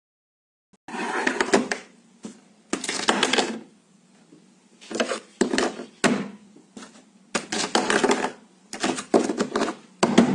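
A cup rattling and scraping on its saucer on a wooden table, in short clattering bursts with silent gaps between.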